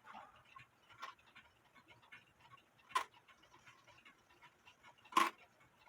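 Faint clicks and light ticking from hands working on an antique wall clock's movement, with a sharper knock about a second in, another about three seconds in, and the loudest near the end.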